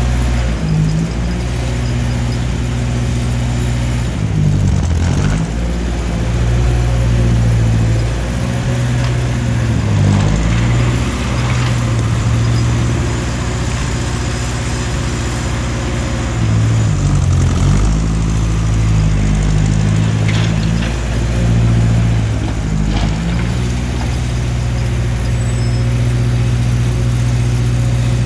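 1955 Ferguson TO35 tractor's engine running steadily as the tractor drives, its pitch briefly dipping and recovering several times.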